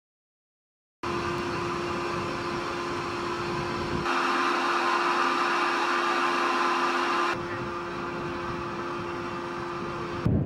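Steady machinery hum and whir at a missile launch silo, with a constant humming tone under it. It starts after about a second of silence and shifts abruptly twice, about four and seven seconds in.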